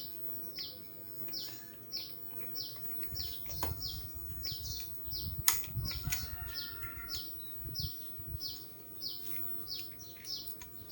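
A small bird calling over and over, a short high falling chirp about one and a half times a second. Between about 3 and 8 seconds in come a few light clicks and knocks of hands and tools at work.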